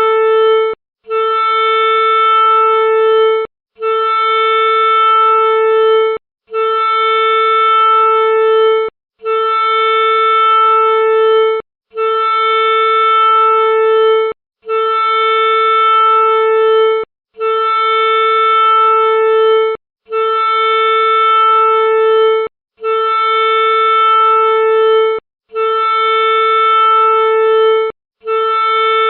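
A horn-like blown tone: one steady note held for about two and a half seconds, then a short break, repeated the same way about every three seconds, about eleven times.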